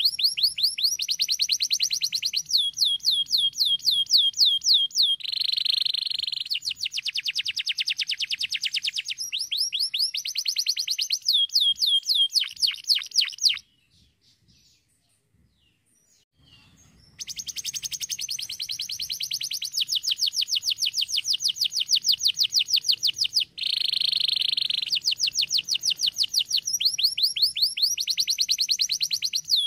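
Domestic canary singing: long rapid trills of quickly repeated high notes, each sweeping downward, with two denser rolling stretches. The song breaks off for about three seconds midway, then resumes.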